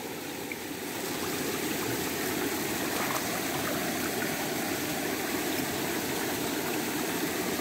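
Steady rush of monsoon-swollen river water flowing fast.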